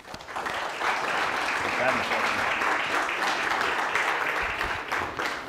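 Audience applauding, a steady patter of many hands clapping that dies down near the end.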